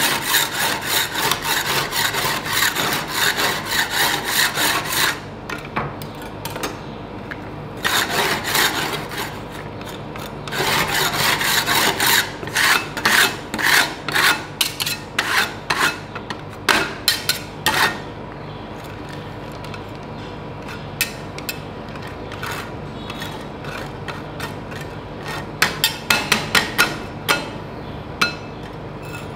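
Two metal spatula scrapers chopping and scraping on a frozen steel ice-cream plate, working rolled-ice-cream base and chocolate candy pieces. The scrapers make rapid runs of clacks and scrapes, with quieter pauses between the runs.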